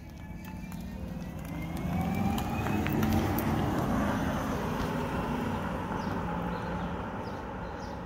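A car driving past on a street: tyre and road noise swelling to a peak about three seconds in, then slowly fading, with a faint rising whine as it approaches.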